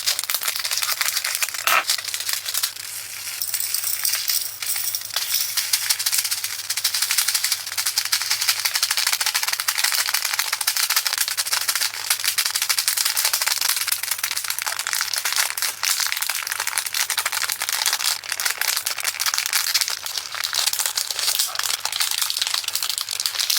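Tiny plastic diamond-painting drills being poured into a small plastic storage container: a dense, continuous clatter of fine clicks.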